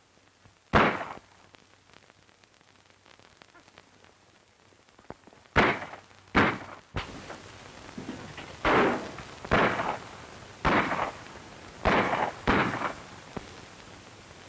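Gunshots in an old western film soundtrack, each crack followed by a short echo. One shot comes about a second in, then after a pause about eight more shots fire in quick succession as an exchange of gunfire.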